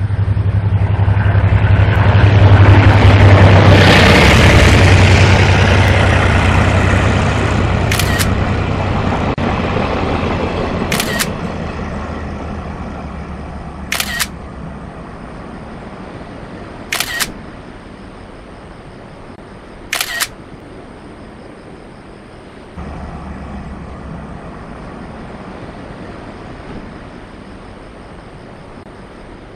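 Freight train passing along the tracks: a steady low locomotive hum and rolling wheel noise, loudest a few seconds in, then slowly fading as the train draws away. Through the middle there are five short sharp clicks about three seconds apart.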